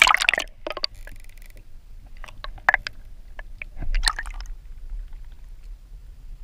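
Water splashing and gurgling against a GoPro camera as it is plunged under the surface and brought back up, with a loud splash at the start, scattered sloshes and clicks, and another splash about four seconds in.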